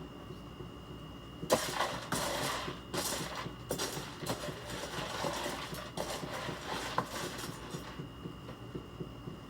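A steady high-pitched whine, the annoying noise she puts down to the water heater, with irregular rustling and clattering knocks over it from about a second and a half in until near the end.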